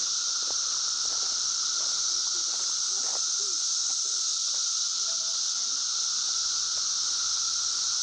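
Steady chorus of 17-year periodical cicadas: an unbroken din with a lower humming band and a stronger high hiss, never changing in level. Faint voices murmur underneath.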